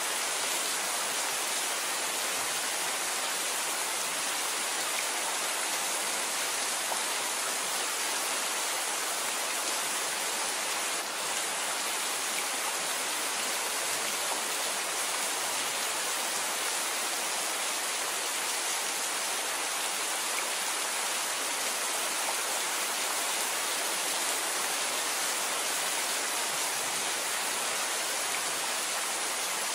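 Steady rain falling: an even, unbroken hiss that holds the same level throughout, with no thunder.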